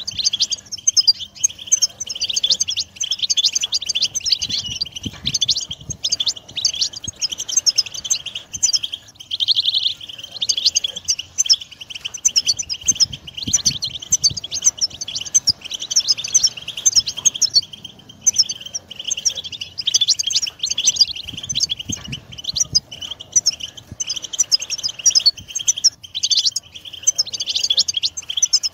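European goldfinches singing: a dense, unbroken run of fast, high-pitched twittering and chattering trills.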